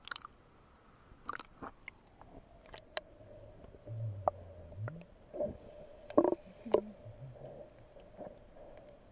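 Muffled underwater sound heard through a camera held just below the sea surface: a splash as it dips under, then scattered clicks and knocks over a faint steady hum, with low rumbles in the second half.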